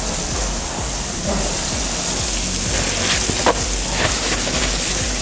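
Beef skirt steak searing in butter in a cast iron griddle pan: a steady hissing sizzle, with a couple of sharp spits a little past three seconds in.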